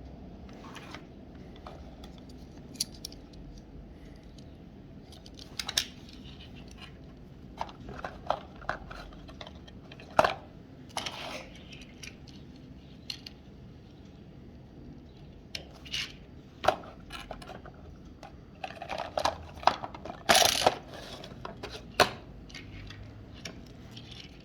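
Close-up handling of small toy-car packs and die-cast toy cars: scattered clicks, taps and short rattles of small hard objects, with a louder cluster of clatters about two-thirds of the way through.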